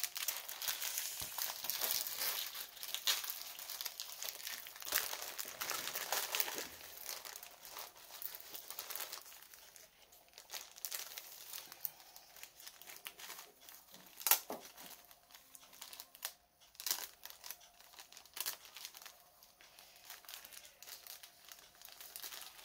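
Clear plastic bags crinkling and rustling as they are handled, dense for the first several seconds, then sparser crinkles with a few sharp clicks.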